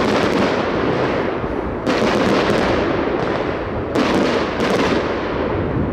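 Aerial firework shells bursting in a continuous barrage, with sharp loud bangs every couple of seconds over a steady din of smaller bursts and crackle.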